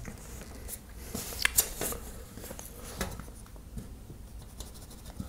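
A few short, light clicks and taps from handling a tape measure and a carpenter's pencil against a sheetrock panel while marking a measurement, the loudest about a second and a half in, over a low steady room hum.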